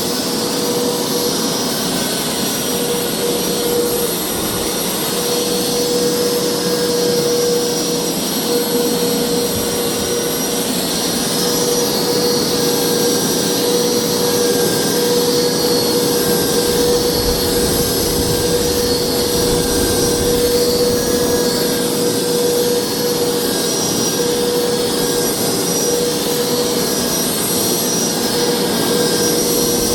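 Hoover carpet cleaner's motor running steadily, a loud even rush of suction with a constant whine.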